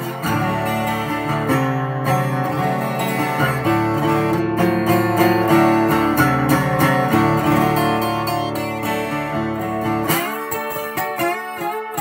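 Martin D12X1 twelve-string acoustic guitar, tuned to open D and played with a slide: fingerpicked notes over ringing low open strings. About ten seconds in, the low ringing stops and a lighter phrase with sliding notes follows.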